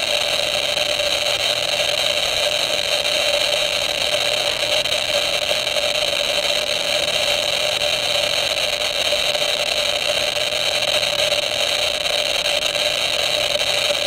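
Eberline RM-14 radiation monitor's speaker clicking so fast that the clicks run together into a steady, dense hiss. The rate is about 20,000 counts per minute from a radium-painted toggle switch held near the HP-260 probe.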